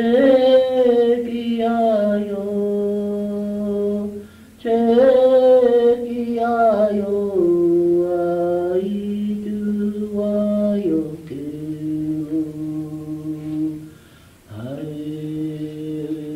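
A man singing a Lakota chant in long held notes, each phrase starting high and stepping down in pitch, with short breaks for breath about four and a half and fourteen seconds in. It is heard on an old home cassette recording with a faint steady hum underneath.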